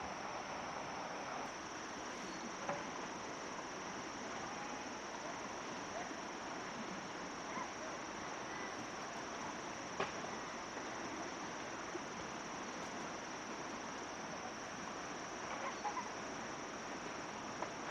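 Insects droning steadily at one high pitch over a steady rushing hiss, with a few faint clicks and taps scattered through.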